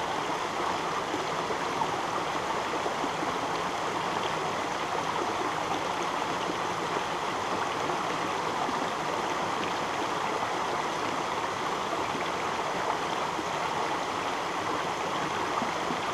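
Small mountain stream running over rocks and shallow riffles: a steady, even flow of water.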